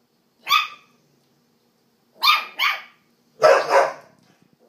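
Terrier barking: five short, sharp barks in three bursts, a single bark followed by two quick pairs.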